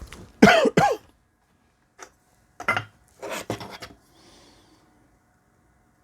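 A man coughing and clearing his throat: a pitched, throaty sound in the first second, then a few short coughs over the next three seconds.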